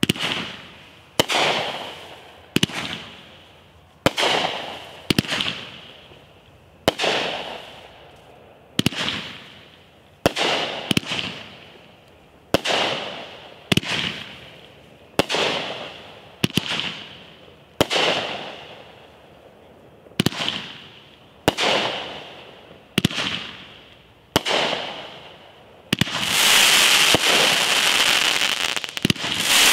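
500-gram 'Beast Mode' consumer firework cake firing tiger-tail shots one after another, about one every second and a half. Each shot is a sharp bang followed by a fading hiss. About four seconds before the end the shots come so fast they merge into a continuous crackling rush: the finale.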